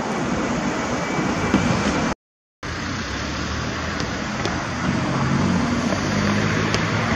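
Steady city street traffic noise. It drops out to silence for about half a second a little after two seconds in.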